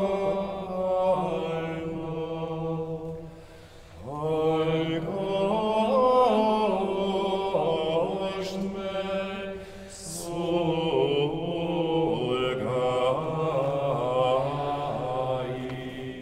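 A choir of men and women church cantors singing a liturgical chant together, in phrases with short breaths about four and ten seconds in.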